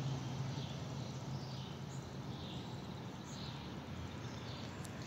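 Outdoor ambience: a low steady hum that fades out about two seconds in, with a small bird chirping over and over.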